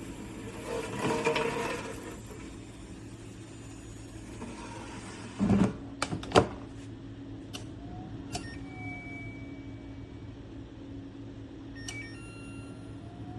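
COSORI Turboblaze air fryer's fan running with a steady hum, with a heavy thump about five and a half seconds in and several sharp clicks after it.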